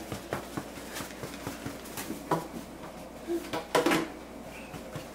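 A scattered run of light taps and knocks, with two louder short sounds, one near the middle and one about four seconds in.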